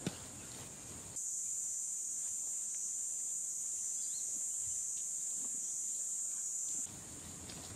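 Steady high-pitched insect drone. It grows much louder about a second in and drops back sharply near the end.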